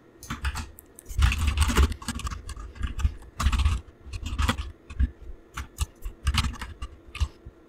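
Typing on a computer keyboard: irregular runs of quick keystrokes, each with a light low thud, stopping near the end.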